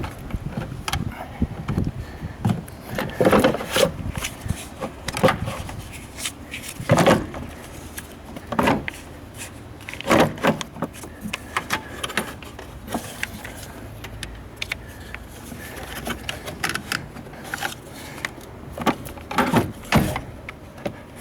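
Irregular metallic clinks, knocks and scrapes of hand tools and parts being handled while working on a car's battery and its fittings, with several sharper knocks spread through.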